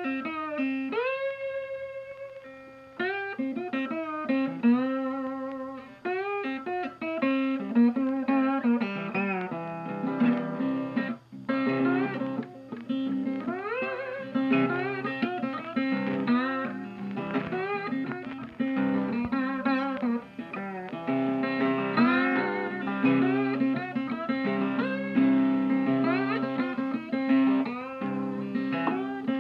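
Background music: a blues tune on plucked guitar, its notes often sliding up into pitch.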